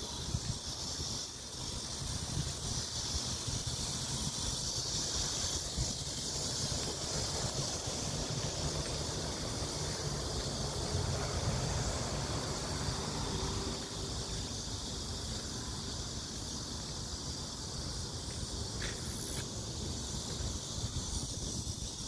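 Wind buffeting a phone microphone outdoors, a steady low rumble, under a steady high hiss.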